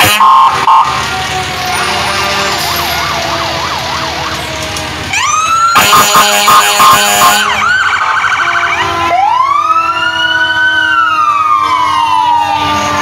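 Fire truck sirens sounding as the vehicles pass, several overlapping. A fast warbling yelp gives way about halfway through to a sudden louder burst of rapid pulsing tones, then a slow wail that rises and falls.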